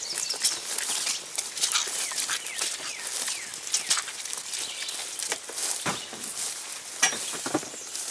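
Irregular rustling and crunching, like steps or handling in dry leaves and brush, with birds chirping faintly behind it.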